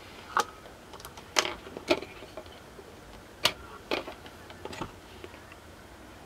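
Handling noise of small circuit boards and multimeter test leads on a wooden tabletop: about half a dozen sharp, irregular clicks and knocks as parts are picked up and set down.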